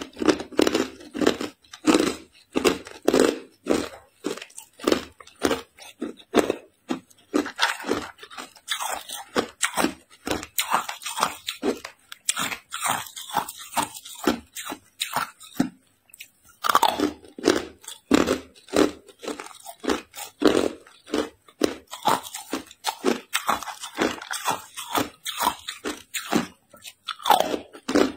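Hard ice cubes being bitten and chewed in a rapid run of sharp crunches, with a brief pause a little past halfway.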